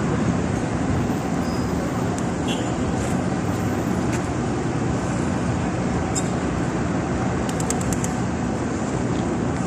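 Steady outdoor city din of traffic noise, mixed with indistinct voices.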